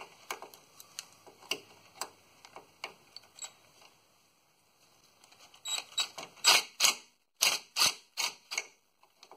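Ratchet on a quarter-inch wobble socket clicking in uneven strokes as a transmission pan bolt is backed out. The clicks come about every half second at first, then stop briefly, then a run of louder clicks and metal clinks follows near the end.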